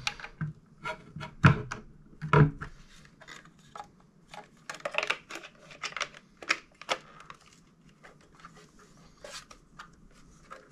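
Plastic casing of an HPE Aruba Instant On AP22D access point being handled and turned over: irregular clicks, knocks and light rubbing, the loudest knocks about one and a half and two and a half seconds in.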